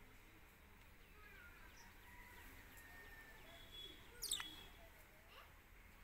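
Budgerigar softly chattering with faint short chirps, then one sharp, loud chirp a little past the middle.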